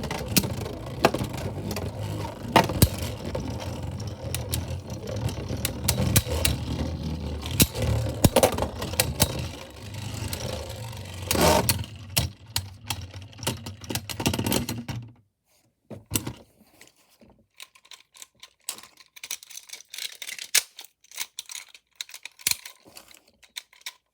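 3D-printed Beyblade tops spinning and clashing: a steady whir with frequent sharp clicks of collisions, which drops away suddenly about fifteen seconds in, leaving only scattered light clicks and rattles.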